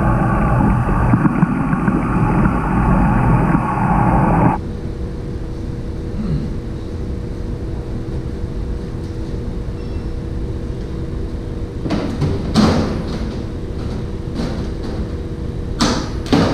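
Loud, muffled underwater rushing picked up by a camera submerged in a fishing pond, cutting off sharply about four and a half seconds in. It gives way to a steady low hum with two short sharp noises, one about twelve seconds in and one near the end.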